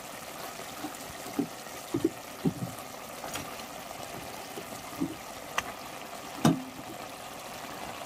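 A pot of meat in a spiced broth simmering: a steady hiss with scattered bubbling pops, the loudest about six and a half seconds in.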